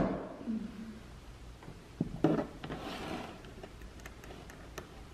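Quiet hand work on the rock-light pod's mounting screw: a few light clicks and taps, with one louder knock about two seconds in.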